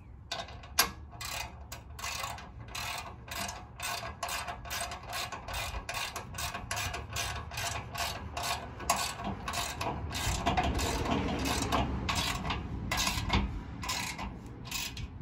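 Hand socket ratchet clicking in a steady run of several clicks a second as it tightens the mounting bolts of a tow hitch receiver.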